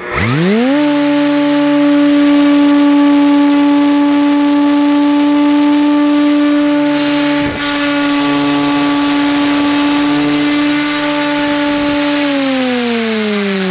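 A 3 hp variable-speed router spins a helicopter tail rotor on a test rig. The whine climbs to speed within the first second and then runs steady, with one brief click about halfway. Near the end it starts to wind down, its pitch falling.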